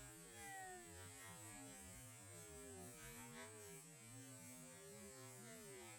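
Near silence: faint, distant voices murmuring over a steady high hiss.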